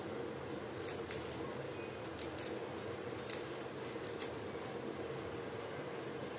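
Pet rat gnawing a small crumb of food, a few sharp crunching clicks in the first few seconds over a steady background hiss.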